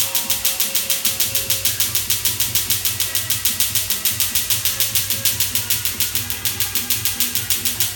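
Laser tattoo-removal handpiece firing pulses into the skin: a rapid, even train of sharp snaps, several a second.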